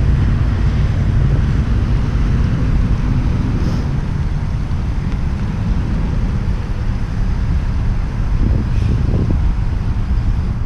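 Wind buffeting an action camera's microphone: a steady low rumble that drops away suddenly near the end.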